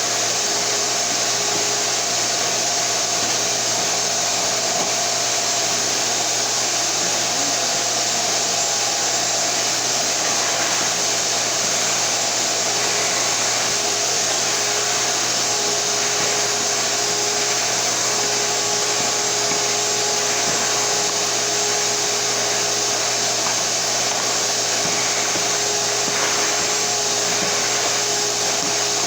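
Shop-Vac Super 1300 7.5-gallon wet/dry vacuum running steadily: a constant rush of air with a steady motor whine, as it sucks through a floor attachment.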